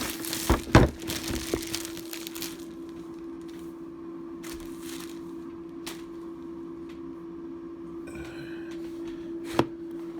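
Crinkling packaging and sharp plastic clicks and knocks as a boxed tool set and its plastic case are handled. The rustle is dense for the first couple of seconds, then only a few scattered clicks follow, the loudest near the end, over a steady background hum.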